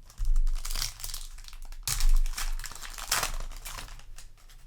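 Foil trading-card booster pack wrapper crinkling as it is handled, in three loud bouts: near the start, about two seconds in, and about three seconds in.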